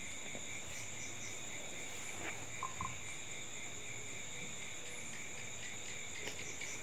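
Night insects, crickets among them, chirring steadily in several high, constant pitches. Two short faint beeps sound close together about two and a half seconds in.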